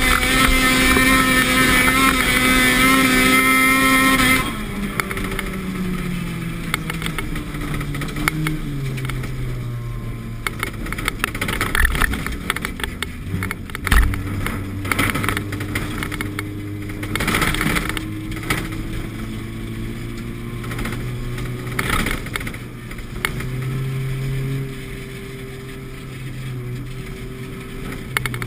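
Music for about the first four seconds, then a car's engine heard from inside the cabin: revs drop away, then rise and fall while driving, with occasional sharp knocks from the car over the ice.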